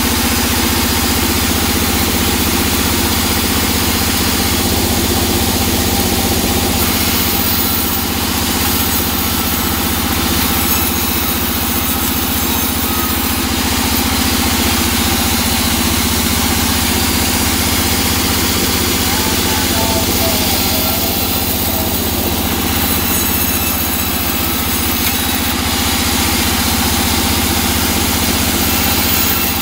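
Large bandsaw resaw running steadily, its motor humming, while teak boards are fed through and cut. The hiss of the blade in the wood grows louder for a few seconds about a quarter of the way in, and again past the middle.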